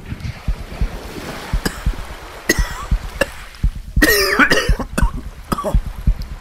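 A man coughing hard, loudest about four seconds in, with a shorter cough earlier, over a wash of sea sound and many low, dull thuds.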